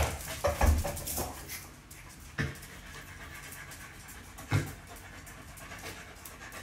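Corgi panting while it trots about on a tile floor, with a few sharp knocks: one at the start, one about two and a half seconds in and one about four and a half seconds in.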